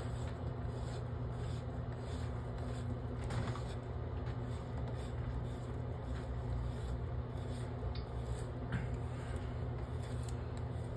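Faint scraping and small clicks of a plastic faucet stem being handled and pushed into the metal faucet body, over a steady low hum.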